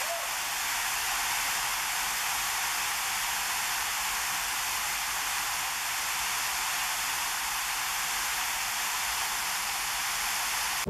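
Steady rush of falling water from a waterfall, an even hiss with no low rumble.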